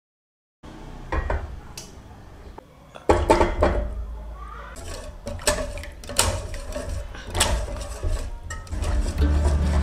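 Wire whisk clinking and scraping against a stainless steel saucepan as a thin chocolate custard mixture is stirred. About three seconds in, chunks of dark cooking chocolate are tipped in from a glass bowl, then the whisk knocks against the pan again.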